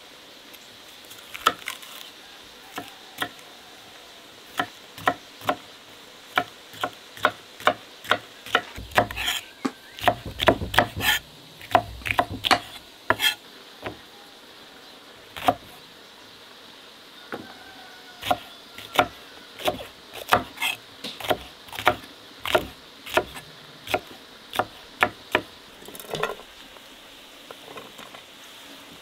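Chef's knife chopping red peppers on a thick wooden log-slice board: sharp knocks of the blade hitting the wood in irregular runs, quickest a third of the way in and again past the middle, with pauses between.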